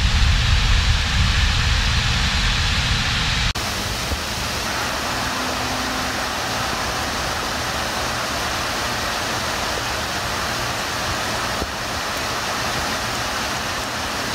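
Steady rush of water from a tiered waterfall cascading over rock ledges. A heavier low rumble in the first few seconds cuts off abruptly, leaving the even rush of the falls.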